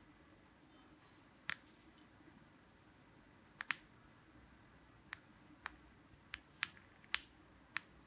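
Buttons on a handheld remote control duplicator clicking as they are pressed: about nine sharp, separate clicks at uneven intervals, two of them close together about three and a half seconds in.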